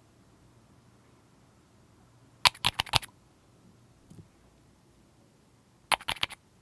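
Slime being pressed and worked by hand, giving two short bursts of sharp crackling clicks about three seconds apart.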